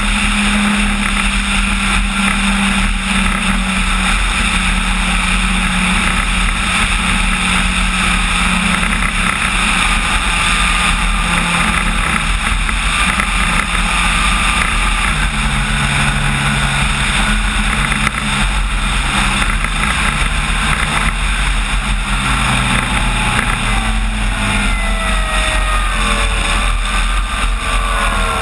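Onboard sound of a large RC model Cessna 185 floatplane's electric motor and propeller in flight, with wind rushing over the microphone. The propeller tone steps down as the throttle is eased back, and in the last few seconds the motor whine falls away as the plane settles onto the water.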